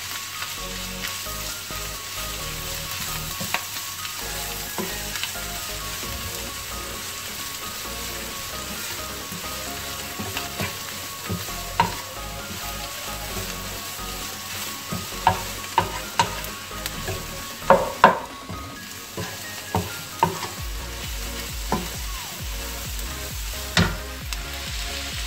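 Pork and sliced red onions sizzling in a white-coated frying pan as a wooden spatula stirs them; the onions are being wilted just until their rawness goes. The spatula knocks against the pan now and then, more often in the second half.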